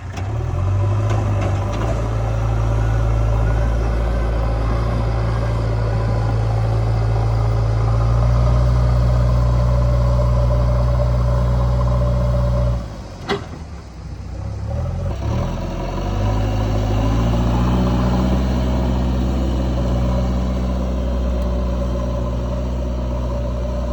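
JCB 3DX backhoe loader's diesel engine running steadily under load. About halfway through the revs drop off briefly with a single sharp knock, then pick back up.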